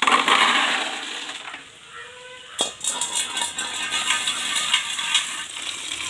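Freshwater snail shells clattering as they are tipped from a steel bowl into a plastic bucket, then, after a sharp knock about two and a half seconds in, tap water pouring and splashing onto the shells to wash them.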